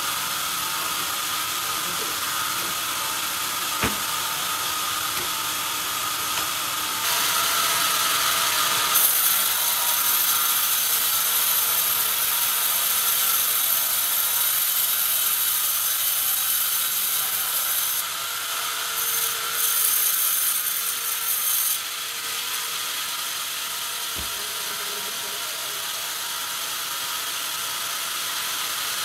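Band sawmill running, its blade cutting lengthwise through a log on the carriage with a steady high hiss and whine. It gets louder about seven seconds in, and there are two sharp knocks, one near the start and one later on.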